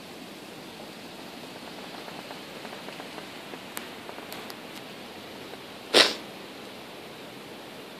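Steady hiss of rain, with a few faint clicks near the middle and one short, loud hissing burst about six seconds in.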